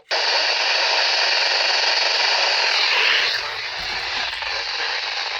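Radio static: a steady hiss from the receiver while the broadcast voice drops out, with a slight change in the hiss about three seconds in.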